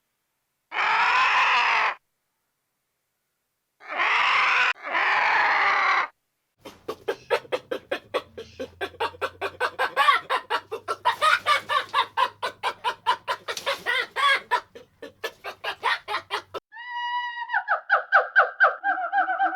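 A run of farm-animal calls. Three short harsh cries come in the first six seconds. They are followed by about ten seconds of rapid clucking, typical of a chicken. Near the end comes a pitched call that drops slightly and then pulses on.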